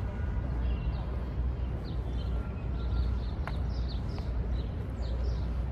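Small birds chirping, many short quick chirps, over a steady low outdoor rumble.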